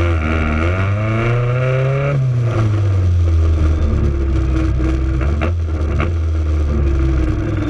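Naturally aspirated Honda all-motor drag car engine heard from inside its stripped cabin while driving slowly. The revs rise over the first couple of seconds, fall back and then hold steady. Two short clicks come a little after five seconds in.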